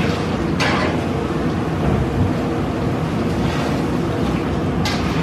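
Batch of peanut pakodi sizzling and bubbling in hot oil in a large iron kadai, over a steady low rumble. A metal perforated skimmer scrapes against the pan twice, under a second in and near the end.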